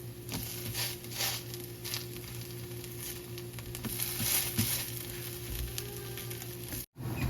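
Food frying in hot oil in a pan: a steady sizzle with louder spells of crackling now and then, over a steady low hum. It cuts off suddenly near the end.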